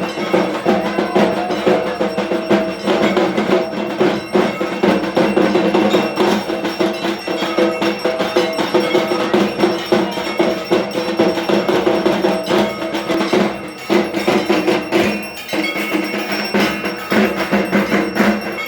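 Ritual percussion of a Durga Puja evening arati: metal bells or gongs clanging rapidly and continuously over drumming, with a brief drop in loudness about 14 seconds in.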